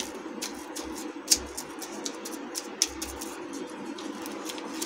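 Paper rustling and light tapping as hands press and smooth the paper backing of edible silver leaf onto a slab of barfi in an aluminium tray, with a few sharp clicks, two of them louder about a second in and near three seconds, over a steady low hum.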